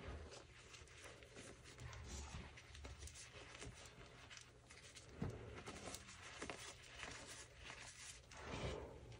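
Faint, irregular soft crunching and rustling of hands pressing, squeezing and crumbling a heap of powdered Friction Labs gym chalk, with two louder presses, one about five seconds in and one near the end.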